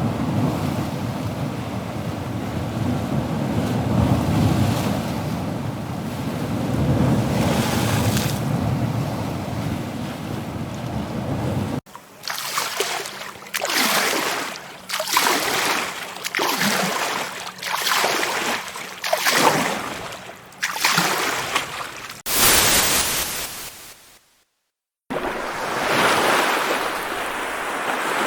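Sea waves washing onto a shore, a steady rumbling surf at first. About twelve seconds in it cuts abruptly to a series of separate waves breaking and hissing back, roughly one a second, then after a brief dropout to silence near the end the steady wash resumes.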